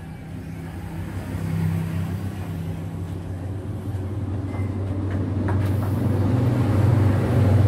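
Low, steady engine hum that grows gradually louder and is loudest near the end.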